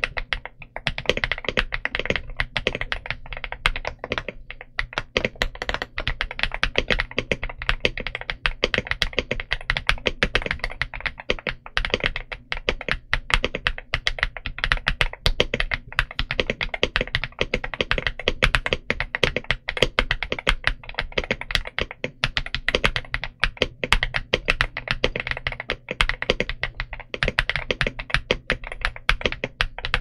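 Steady, fast typing on a VTER K75 mechanical keyboard with VTER Bloom linear switches (made by Huano) and doubleshot PBT OEM-profile keycaps: a dense, even run of key strikes with no pauses.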